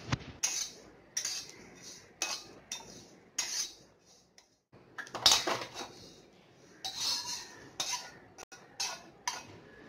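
Steel spatula scraping and stirring cumin seeds as they dry-roast in a black kadai, in short strokes about once a second with metal clinks against the pan. The strokes pause briefly around four seconds in.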